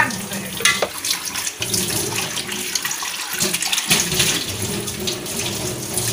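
Kitchen tap running into a stainless steel sink as a plastic bowl is rinsed under the stream, with small knocks and splashes from the bowl being handled.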